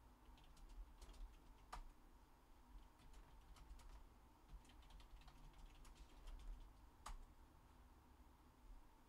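Faint typing on a computer keyboard: quiet, irregular key clicks with two louder clicks, one about two seconds in and one about seven seconds in.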